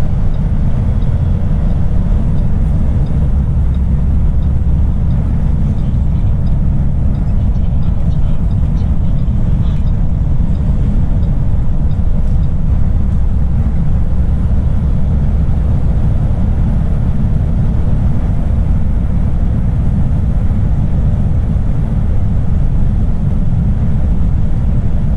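Semi truck's engine and road noise, a steady low rumble that never breaks.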